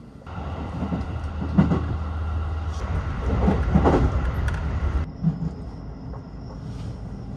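Local electric train running on the Tokaido Line, heard from inside the carriage: a steady low rumble with a few heavy knocks of the wheels over rail joints. About five seconds in it changes suddenly to quieter running with a faint high whine as the train nears a station.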